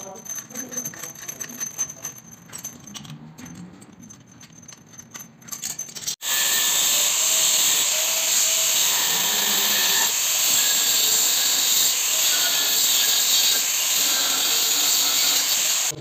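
Light metal clicks and handling of a pipe wrench on a gas-meter valve fitting. About six seconds in, after a sudden cut, a loud, steady hiss starts and runs on.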